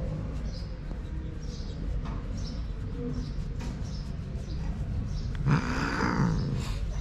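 Siamese cat giving one short growling yowl with a hiss in it, rising then falling in pitch, about five and a half seconds in: the cat is annoyed at being disturbed while stroked. A low steady rumble lies underneath.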